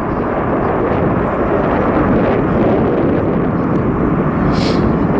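Jet airliner engines giving a steady, loud roar as the plane passes close by.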